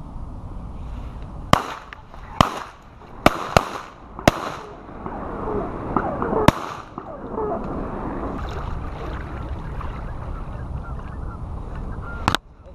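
A rapid volley of shotgun shots, six in about five seconds, with Canada geese honking among and after the shots.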